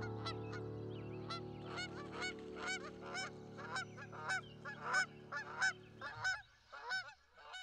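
A flock of geese honking repeatedly, about two calls a second, over a sustained music chord that fades out about six seconds in.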